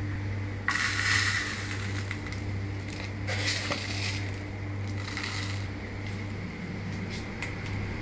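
Dry whole spice seeds (panch phoron: cumin, mustard, fenugreek, nigella and fennel) rattling against plastic as they are scooped from a jar and poured into a small cup. It comes in three short rattling bursts: about a second in, past three seconds, and near five seconds.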